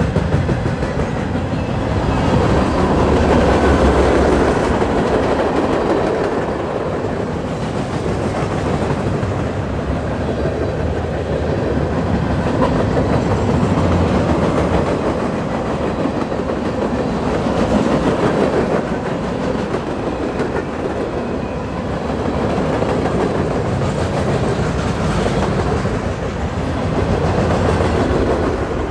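Freight cars of a long mixed manifest train rolling past close by: a continuous rumble and clatter of steel wheels on the rails, swelling and easing as the cars go by.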